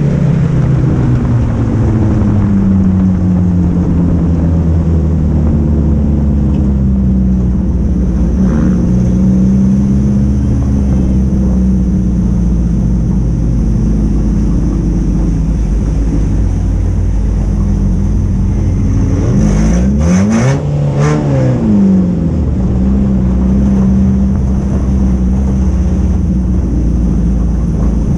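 Honda Accord race car's four-cylinder engine heard from inside the cockpit, its revs rising and falling through the turns. About two-thirds of the way through, the revs dip sharply and climb again, with a few short clicks.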